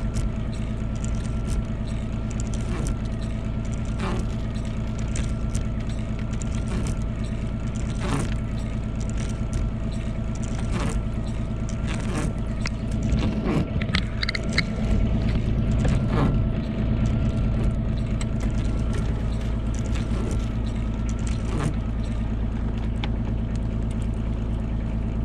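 A vehicle engine running steadily with a low drone, a faint wavering whine above it, and short knocks every few seconds; it grows louder for a few seconds just past the middle.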